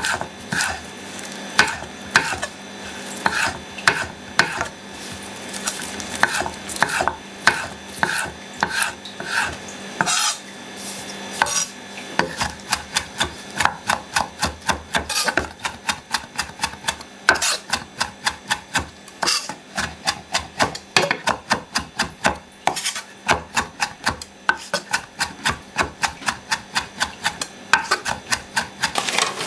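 A Misono UX10 chef's knife mincing flat-leaf parsley on a wooden cutting board: a run of regular knocks as the blade strikes the board. The chops come slower at first and get quicker and closer together after about twelve seconds.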